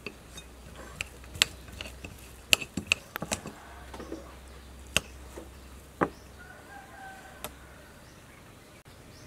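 Metal spoon clinking and scraping against a ceramic plate and dish as fried fish omelette is served and scooped, in a string of sharp irregular clicks. A faint drawn-out animal call sounds in the background about two-thirds of the way through.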